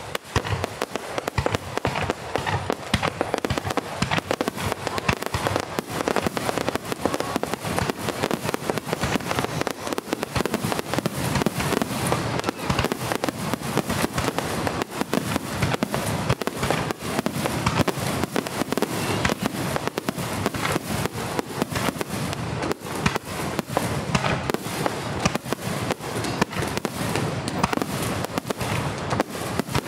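Aerial fireworks going off in a dense, continuous barrage: shell bursts following one another in rapid, overlapping succession, with no pause between them.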